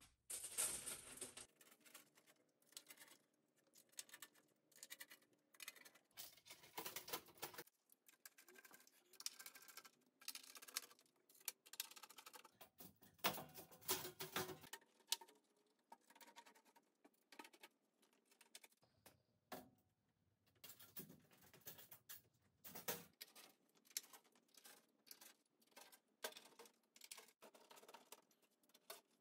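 Faint, scattered clicks, taps and light scrapes of hand work on sheet-metal body panels and their fasteners, in short clusters with near silence between them.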